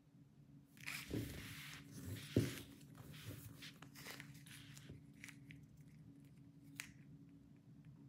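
Hands handling a cloth tape measure and a small plastic-cap tape reel: rustling and light scraping, with one sharp knock about two and a half seconds in and a few light clicks later, over a steady low hum.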